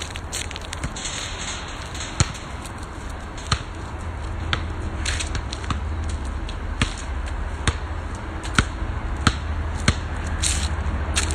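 Basketball bouncing on a hard outdoor court as it is dribbled: a string of sharp single knocks about a second apart, over a steady low rumble.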